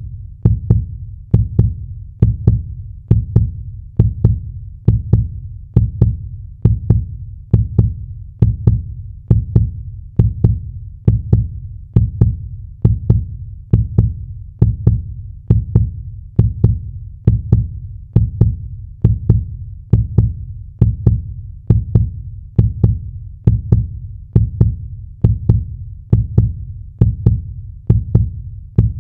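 Heartbeat sound effect: a steady, even rhythm of deep thumps, a little under one beat per second.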